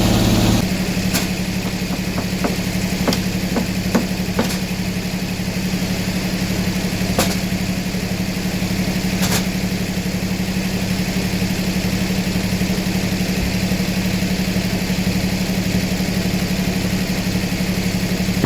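Sawmill engine dropping back to a steady idle just after the start, with a few sharp knocks in the first ten seconds.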